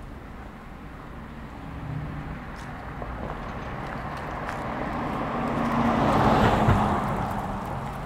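A car passing on the street: its tyre and engine noise swells, peaks about six and a half seconds in, then fades.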